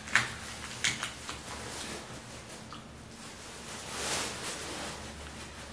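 Crab leg shells being cracked and snapped open by hand, a few sharp cracks in the first second or so, with plastic bag rustling and a longer rustle about four seconds in.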